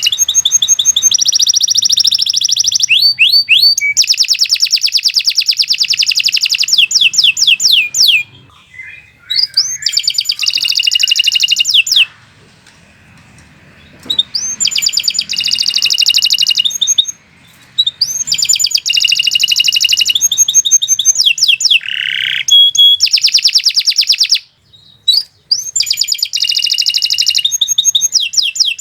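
Domestic canary singing long, rapid trills, phrase after phrase of quickly repeated high notes, with short pauses between phrases.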